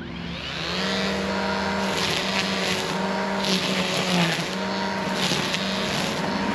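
Echo eForce 56V battery-powered tool's electric motor spinning up with a rising whine over the first second, then running at a steady whine with several rough, noisy surges as it bites into material.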